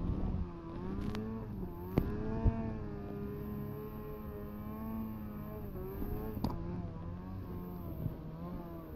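Snowmobile engine running at high revs while the sled pushes through deep powder, its pitch wavering up and down with the throttle. A few sharp knocks break in, around two seconds in and again after six seconds.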